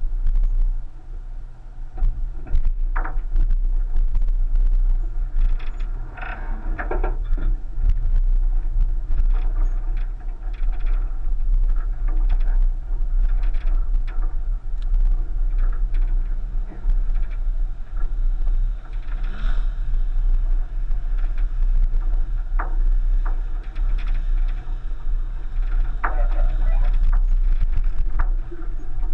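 1999 Subaru Forester driving slowly over a rutted, stony dirt track: a steady low rumble of the car and its tyres on the dirt, broken by frequent knocks and clatter as the wheels drop into ruts and roll over loose stones. A few short higher-pitched creaks or scrapes stand out, about three seconds in, around seven, near twenty and near twenty-six seconds.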